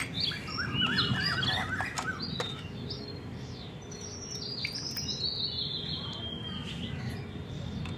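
Birds chirping in short wavy calls, with a thin trickle of water pouring from a small toy kettle into a steel tumbler in the second half.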